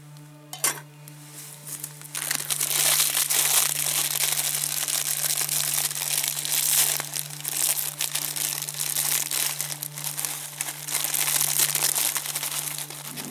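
Plastic instant-noodle packet crinkling and crunching as it is handled and the dry noodle block is emptied into a cooking pot. A single clink of the pot lid comes about half a second in.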